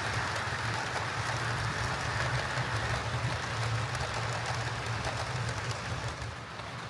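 Heljan Class 58 OO gauge model diesel locomotive running along the track: a steady motor hum with the rush of its gears and wheels on the rails, dropping a little near the end as it moves away. It runs evenly, after repair of its drive shafts and gears.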